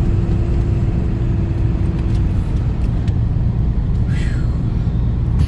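Steady low rumble of engine and road noise inside a moving vehicle's cabin, with a thin steady hum that stops about two seconds in.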